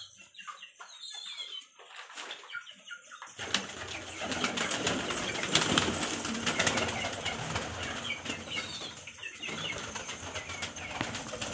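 Pigeons flapping their wings in a wire-mesh cage: a dense run of wing beats and fluttering that starts about three seconds in, with a few short high chirps mixed in.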